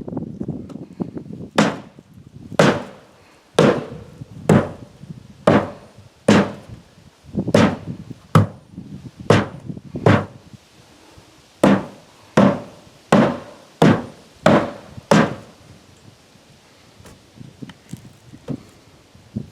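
Hammer blows on wood: about sixteen sharp strikes, roughly one a second, with a short break about two-thirds of the way through. The strikes stop a few seconds before the end.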